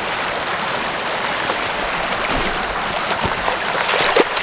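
Rain-swollen dry creek running full, a steady rush of water over rocks and leaf litter, with a few short clicks near the end.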